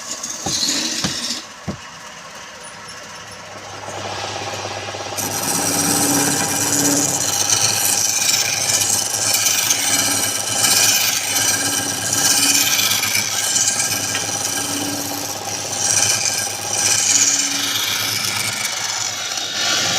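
Wood lathe running with a turning tool cutting the spinning wood: a steady motor hum under a rough scraping hiss that builds up from about four seconds in and carries on, after a few sharp knocks in the first two seconds.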